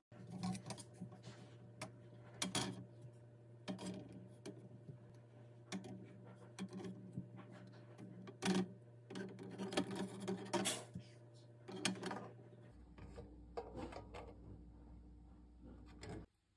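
Eggs being set down one by one in a Power XL air fryer's perforated basket: irregular light clicks and knocks of shell on the basket and against other eggs, over a low steady hum.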